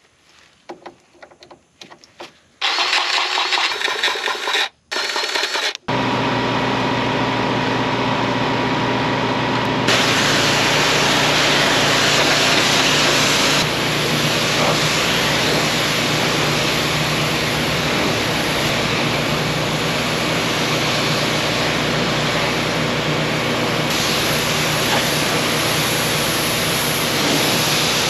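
An engine starting, then running steadily with a loud hiss over it; the sound changes abruptly several times.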